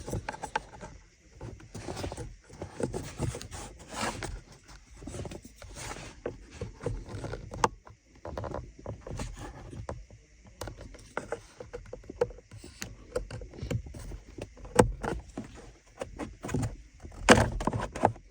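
Plastic steering column cowl being unclipped and lifted by hand: irregular clicks, knocks and rattles of the plastic trim, with a few sharper knocks near the end.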